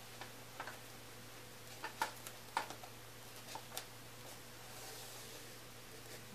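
Faint, scattered small ticks and rustles of hand-sewing a hair weft onto a synthetic wig: a needle and thread pulled through the weft and wig, with fingers handling the wig fibres.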